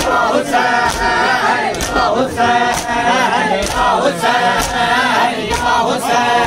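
A crowd of men chanting in unison in a Muharram mourning chant, with the rhythmic slaps of matam, hands beating on chests, falling about every two-thirds of a second.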